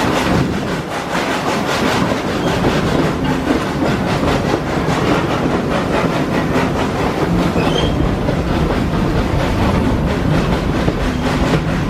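An amusement-park train's cars rolling along the track, heard from on board: a steady rumble with a rapid clickety-clack of wheels over the rail joints. A brief faint wheel squeal comes about eight seconds in.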